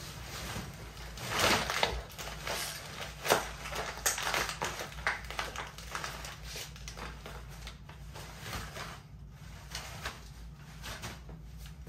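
Black plastic garbage bag of paper rubbish crinkling and rustling as it is handled and pressed flat. The sound is an irregular run of crackles, loudest in the first few seconds and softer after about seven seconds.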